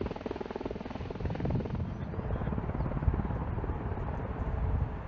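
MV-22 Osprey tiltrotor flying in helicopter mode, its two proprotors making a steady, rapid rotor beat with a deep engine rumble beneath.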